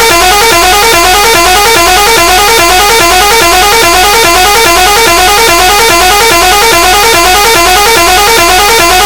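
DJ remix built on a truck horn sample: loud pitched horn blasts repeat in a fast, even rhythm over a continuous deep bass.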